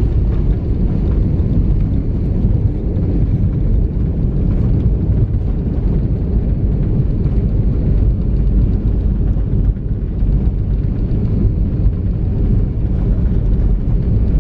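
Steady low rumble of a jet airliner heard from inside the cabin, engines and airflow running evenly with no change in pitch or level.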